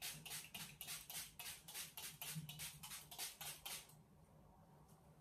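Pump-spray bottle of facial toning mist spritzed rapidly: about twenty quick sprays, roughly five a second, stopping about four seconds in.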